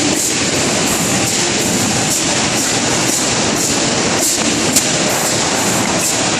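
Steady, loud rumble of a moving vehicle, with a faint regular ticking about twice a second.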